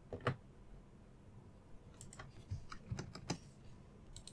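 Computer keyboard keys being pressed: a few separate clicks, one just after the start, then a cluster of keystrokes from about two to three and a half seconds in, and one more near the end.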